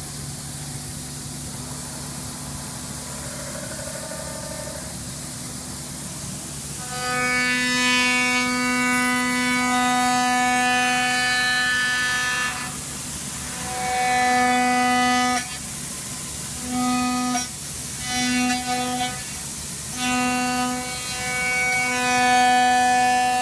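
CNC milling machine cutting: a steady machine hum, then from about seven seconds in a loud pitched squeal from the cutting tool, holding one fixed pitch and cutting in and out in stretches of one to several seconds.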